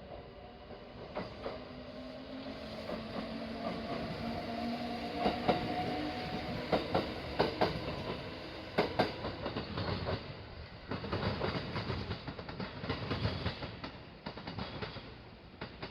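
Kintetsu electric train passing, a tone rising slowly in pitch over the first few seconds, then wheels clacking over rail joints in quick groups with a low rumble before it fades.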